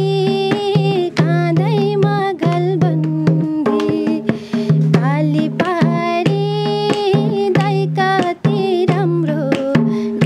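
A woman singing a Nepali Teej folk song while she plays a madal hand drum, with regular drum strokes and a deep ringing bass beneath the melody.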